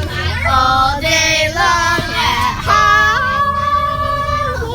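Voices singing a few long held notes that step in pitch, the last one held for nearly two seconds, over the steady low hum of a bus.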